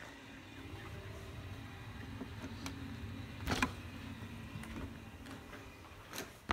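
Muffled handling noise from a phone held with a hand over its microphone and lens, over a faint low steady hum, with a sharp knock about three and a half seconds in and a small click near the end.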